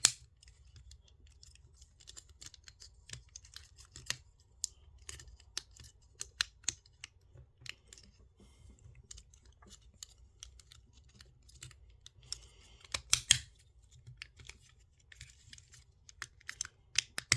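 Plastic joints and parts of a Transformers action figure clicking and snapping as it is folded into vehicle mode: scattered sharp clicks, with a louder cluster of snaps about thirteen seconds in.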